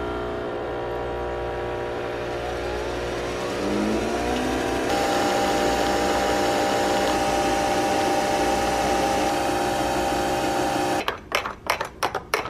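Pod coffee machine brewing into a mug: a steady motor hum with several steady tones and a rising whine about three to four seconds in, stepping up about five seconds in and then running evenly until it stops about eleven seconds in. A quick run of taps follows as the coffee is stirred in the mug.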